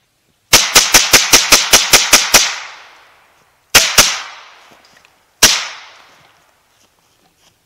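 Semi-automatic Ruger .22 rimfire rifle firing rapidly: about eleven shots in two seconds, then two more close together and a final single shot, each trailing off briefly.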